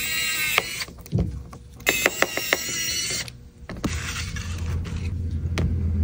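Small clicks and scraping from hand tools working on a tablet, with a quick run of sharp clicks about two seconds in and a low hum near the end.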